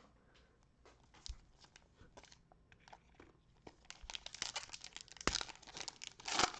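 Cellophane wrapper of a trading-card cello pack crinkling as it is torn open. Scattered light clicks and rustles at first, then dense crinkling about four seconds in.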